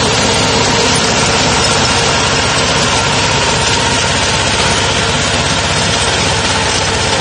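A 20 hp mini tractor's engine running steadily under load as it drives a rear-mounted rotary tiller through the soil.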